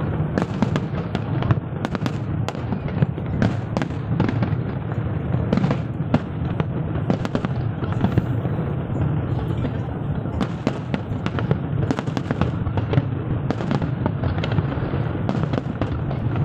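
Aerial fireworks display with shells bursting in rapid, continuous succession: many sharp cracks and bangs over a steady low rumble.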